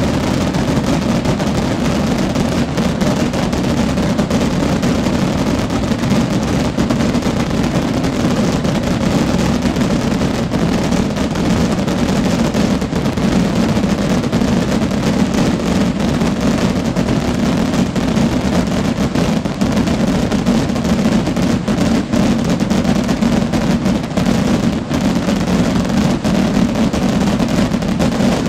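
A massive barrage of voladores (rocket fireworks) bursting without pause. The bangs come so thick they merge into one loud, steady din, with individual cracks showing through.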